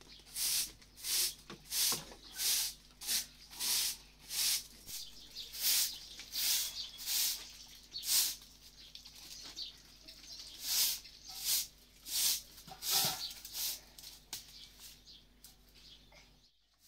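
Short-handled straw broom sweeping a concrete yard, swishing in regular strokes about one and a half times a second.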